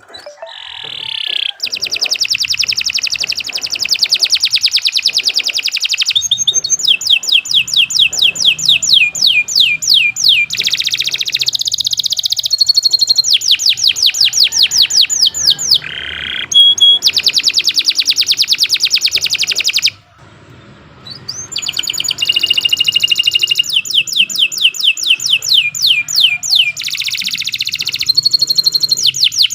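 Domestic canary singing a long, continuous song of fast trills and rolls of rapidly repeated high notes. It breaks off briefly about two-thirds of the way through, then starts again.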